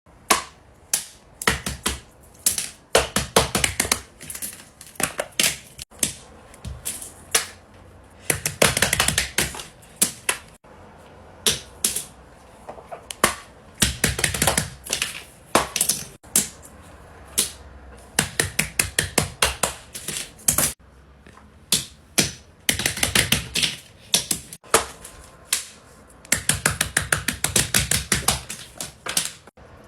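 Rapid, irregular runs of small clicks and taps from handmade fidget toys being handled, with a few denser scratchy stretches.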